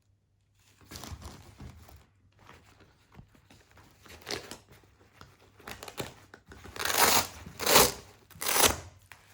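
A nylon plate carrier and its hook-and-loop (Velcro) front panel being handled: intermittent rustling and scraping, then three louder rasping rips in quick succession near the end.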